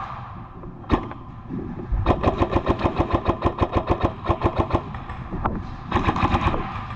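Airsoft gun firing on full auto: a long burst of rapid clicking shots, about ten a second, lasting nearly three seconds, then a shorter burst near the end, with single sharp shots before and between.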